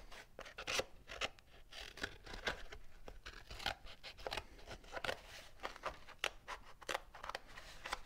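Small scissors cutting a piece off a roll of cork gasket sheet: a run of irregular snips and rustles.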